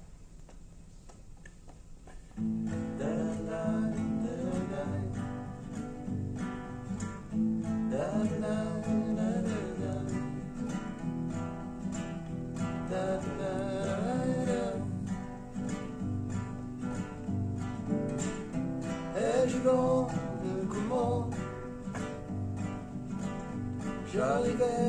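Two acoustic guitars playing a song intro, picked and strummed chords coming in about two seconds in.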